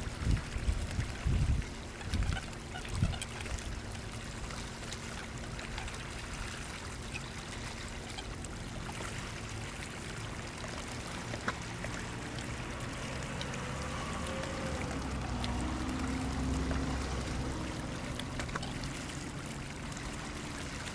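River water lapping and trickling at the shoreline. A few low thumps come in the first three seconds, and a faint low hum swells in the second half.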